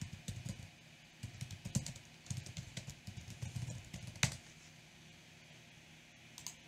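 Typing on a computer keyboard, entering login details: a quick run of keystrokes that ends in one louder key press a little over four seconds in.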